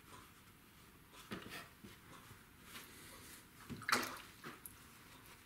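Faint scratchy strokes of a watercolour brush on textured cold press paper, with a brief louder noise about four seconds in as the hand moves away from the painting.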